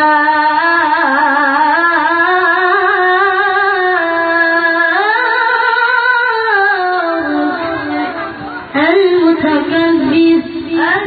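A child qari's voice reciting the Quran in the melodic tilawah style. One long, ornamented phrase wavers and slowly rises and falls, then a fresh phrase begins about three quarters of the way through.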